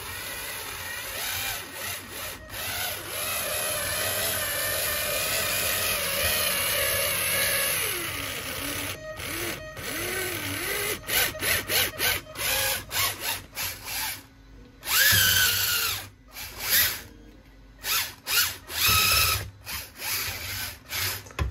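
Small electric motor and metal spur-gear drive of a homemade radio-controlled 4x4 mini tractor, running at high speed with a high, drill-like whine. It runs steadily for the first several seconds, then is throttled in short bursts, each spinning up with a rising whine.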